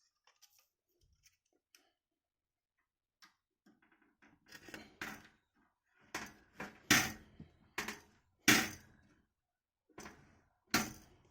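Handling noise of a cable connector being fitted into a computer power supply: a run of sharp clicks and knocks of plastic and metal. It starts about three seconds in, and the loudest knocks come in the second half.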